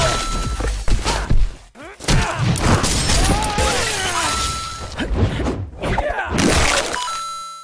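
Animation sound effects: a fast string of hits, crashes and shattering, with a short steady beep near the start, another about four seconds in and one near the end, and wavering, gliding tones in between. The sound fades out at the very end.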